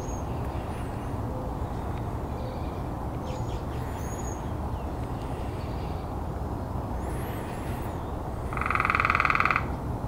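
Red-bellied woodpecker giving one loud rolling churr call, about a second long, near the end. Faint short high chirps come earlier, over a steady low rumble.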